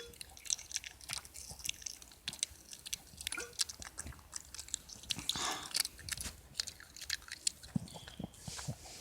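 A dog chewing and crunching hard Skittles candies: quick, irregular clicks of teeth on candy, with a short breathy rush of noise a little past the middle.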